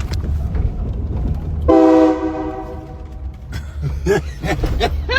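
Train horn installed on a truck sounding one sudden, loud blast about a second and a half in, a chord of several steady tones that fades out over about two seconds.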